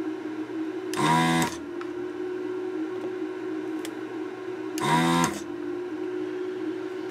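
Electric desoldering gun's vacuum pump buzzing in two short half-second bursts, about a second in and again about four seconds later, as it sucks molten solder off a diode's joints. A steady hum runs underneath.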